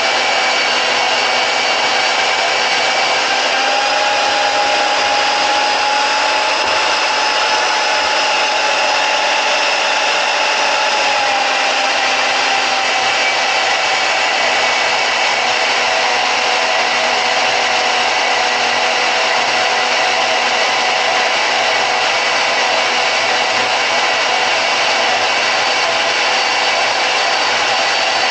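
Portable deep-cut variable-speed band saw running steadily while cutting steel: a constant motor whine over the hiss of the blade, the pitch shifting slightly a few times.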